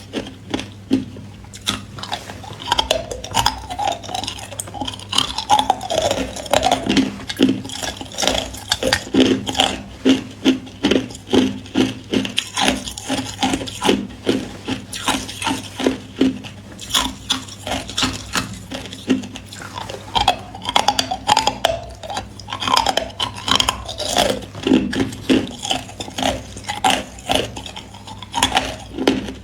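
A person biting and chewing hard clear ice: a dense, steady run of sharp crunches and cracks.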